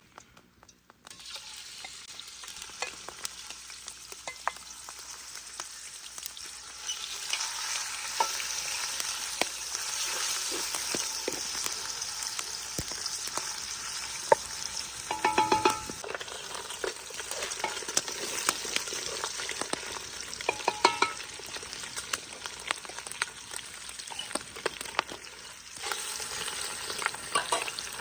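Food sizzling in hot oil in a pan while being stirred. The sizzle starts about a second in and grows louder a few seconds later, with a couple of bursts of utensil clinks against the pan midway.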